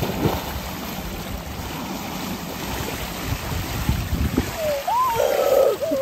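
Swimming-pool water splashing and sloshing around people wading and playing in it, with a louder splash at the start and wind on the microphone. Near the end a short high cry glides up and down over the splashing.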